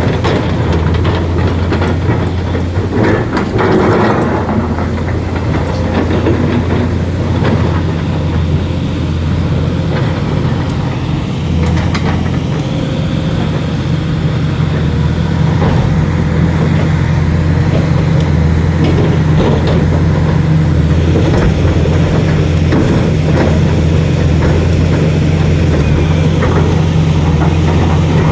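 A motor vehicle's engine running steadily with a low hum, getting a little louder about halfway through.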